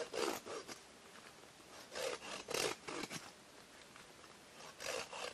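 Small hand saw cutting through a branch of firewood, a few rasping strokes in short bouts with pauses between.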